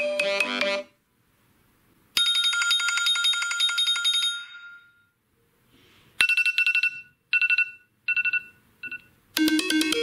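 A run of iPhone ringtones. One ringtone cuts off about a second in. A bright phrase of fast-repeated notes follows at about two seconds. A different ringtone then plays four short bursts, each shorter and fainter than the last. A new, fuller melodic ringtone starts near the end.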